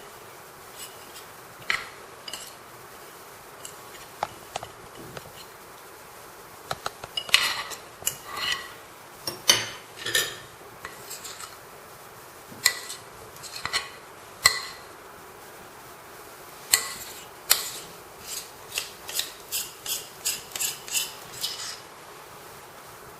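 A utensil scraping thick cake batter out of a mixing bowl into a baking tray: a series of short scraping strokes, scattered at first, then coming in a quick run near the end.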